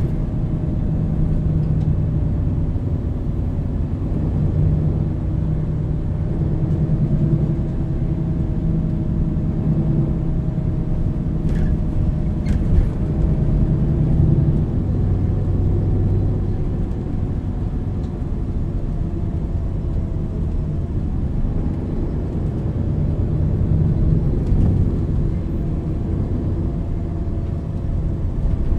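MAN NL 323 city bus's six-cylinder diesel engine running steadily while the bus drives. About halfway through, the engine note drops in pitch, as the ZF EcoLife automatic gearbox shifts up. There are two faint knocks a little before that.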